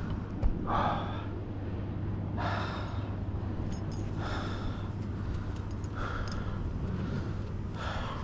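A person breathing heavily and audibly, about five breaths evenly spaced, over a steady low hum.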